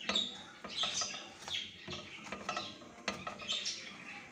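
Small birds chirping in quick, high, short calls, with light clinks of kitchen utensils against bowls and pans.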